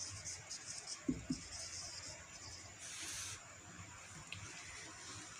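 Marker pen writing a word on a white board: faint, quick scratching strokes, with two short squeaks about a second in and a longer stroke around three seconds in.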